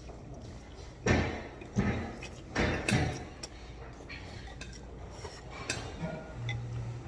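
Tableware clattering during a meal: a spoon and chopsticks knocking against a soup bowl, with several louder knocks in the first few seconds.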